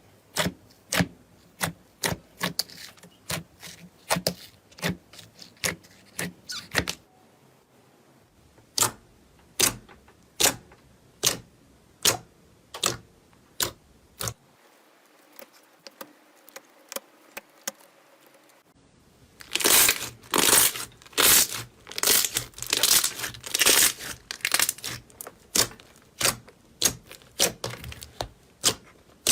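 Slime being worked by hand, giving a run of sharp clicks and pops about two a second. In the last third the pops come louder and closer together.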